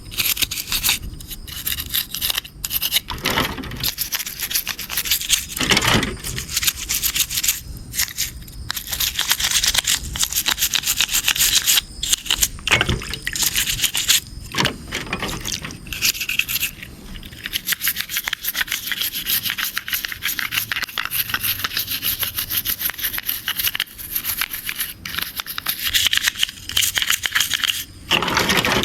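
Scrubbing on a mud-covered RC car: repeated irregular rubbing strokes with a scratchy hiss, a few of them heavier.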